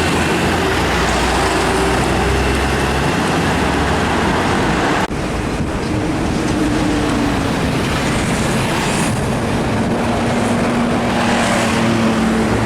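Heavy road traffic going by: truck engines and tyre noise, with a low engine drone for the first three seconds and a sudden break about five seconds in.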